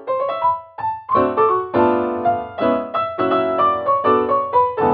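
Background music on piano: chords and a melody of struck notes that fade, about three notes a second.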